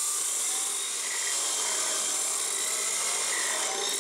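Metal-cutting chop saw running steadily as its blade grinds through steel exhaust tubing, a loud high-pitched grinding whine.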